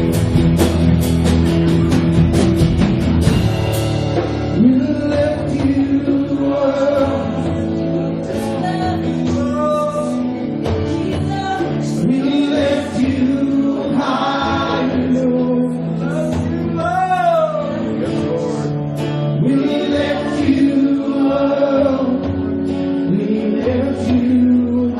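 Live gospel worship music: singers over a band playing sustained chords, with drum hits in the first few seconds.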